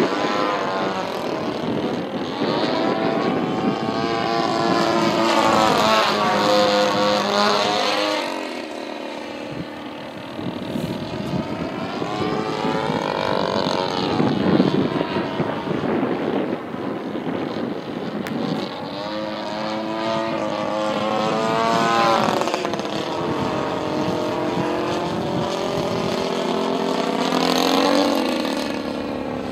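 35cc NGH single-cylinder two-stroke gasoline engine of a radio-controlled Sbach 342 aerobatic plane in flight, its pitch rising and falling repeatedly as the plane manoeuvres and passes overhead.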